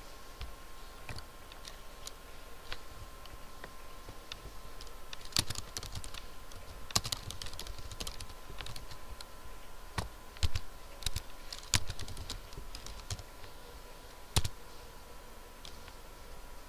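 Typing on a computer keyboard: irregular key clicks with a few louder strokes, over a faint steady tone.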